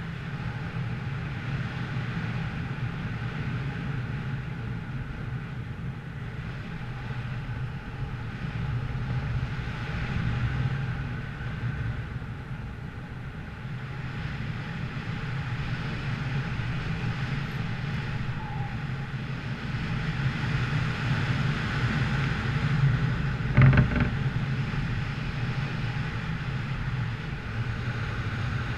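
A vehicle's engine drones steadily, with a noisy rush over it. A single sharp knock comes about 24 seconds in.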